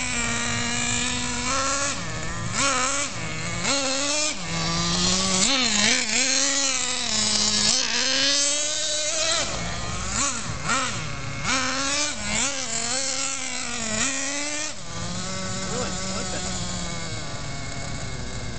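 Traxxas Jato 3.3 nitro RC car's small two-stroke glow engine revving up and down as the car drives, a buzzing pitch that climbs and drops every second or so. About 15 seconds in it settles to a steadier, lower drone.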